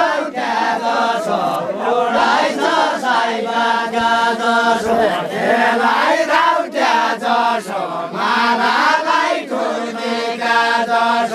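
Deuda, the far-western Nepali folk song, sung by a group of voices together as a chant, in phrases that settle on long held notes.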